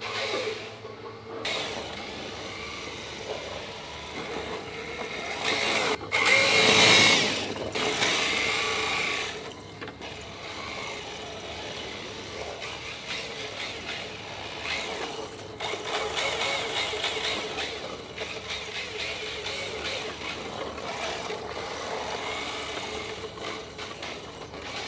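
1/10-scale RC drift car's small electric motor whining as the car drives and slides. The sound surges loudest about six to nine seconds in.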